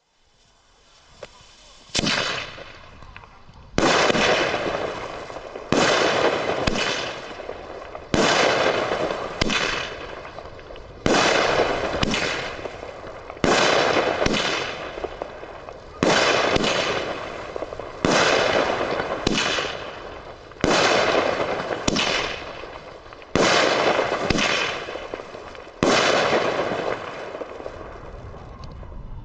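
Nico Golden Tiger firework battery firing shot after shot, roughly one every one to two seconds and sometimes two in quick succession. Each shot is a sharp bang that trails off over a second or two.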